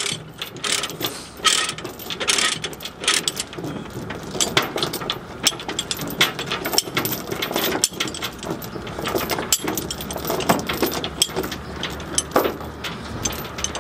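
Steel transport chains clanking and rattling as a ratchet chain binder is worked loose to unchain a tractor on a trailer deck: a steady stream of irregular metal clinks and clanks.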